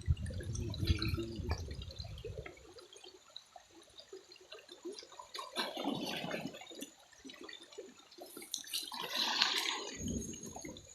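River water sloshing and gurgling around a diver, with scattered drips and small clicks. A low rumbling wash in the first couple of seconds, then two louder swells of splashing about six and nine and a half seconds in.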